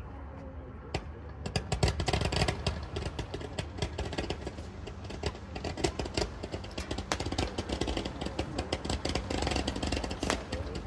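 1.4G consumer firework going off, throwing angled streams of sparks, with dense crackling that starts about a second and a half in and keeps going.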